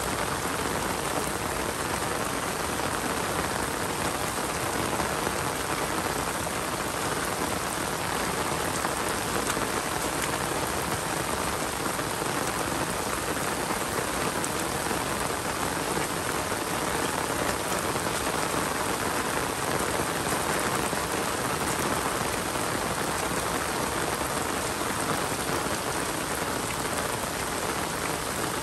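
Steady rain falling, an even hiss with many individual drop ticks and no change in strength.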